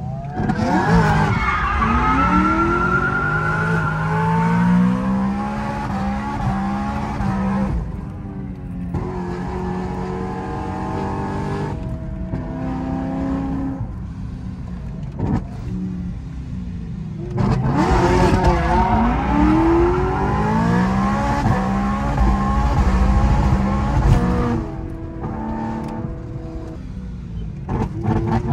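Supercharged, straight-piped BMW M3 E90 V8 heard from inside the cabin, driven hard: the engine revs up and backs off again and again, with a quieter stretch in the middle and another near the end.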